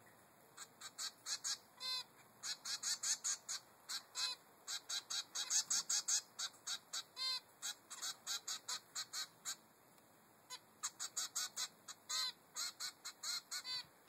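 A three-week-old zebra finch chick begging its mother for food: rapid runs of short, high calls, about four or five a second, with a few longer nasal calls mixed in. The calling drops off for about a second past the middle, then resumes.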